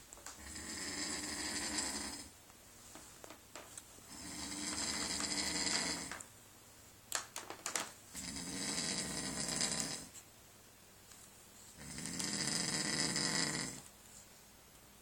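A sleeping man snoring loudly: four long, rasping snores about every four seconds, with quiet breaths between. A few small clicks come just past halfway.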